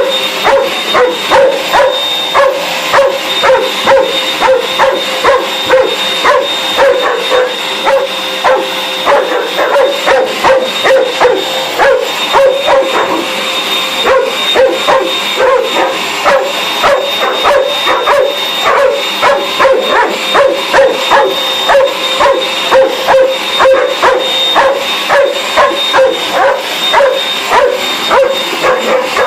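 A dog barking and yipping frantically at a running vacuum cleaner, about two barks a second without pause, over the vacuum's steady whine.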